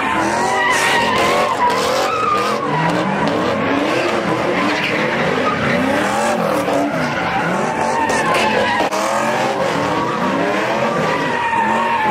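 A car doing donuts: its tyres squeal continuously with a wavering pitch as it slides. Under the squeal, the engine revs rise and fall again and again.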